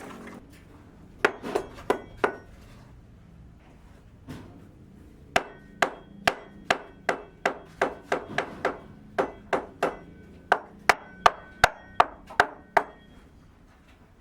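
Hammer blows with a short metallic ring: a quick group of four strikes, a pause, then a long run of steady strikes at two to three a second.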